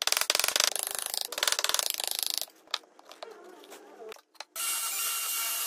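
Very rapid tapping, many strikes a second, of a mallet driving a chisel to chop out a mortise in a hardwood leg. It stops about two and a half seconds in, leaving a few scattered clicks. From about four and a half seconds in, a steady hiss with a faint whine takes over.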